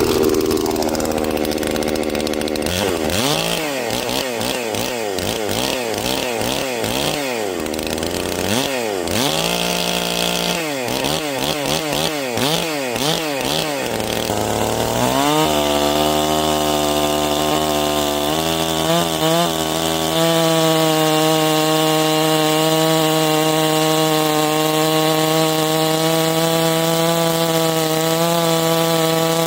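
Holzfforma G466 76.5cc two-stroke chainsaw revving up and down over and over, each rev rising and falling in well under a second, then about halfway through held at a steady high speed.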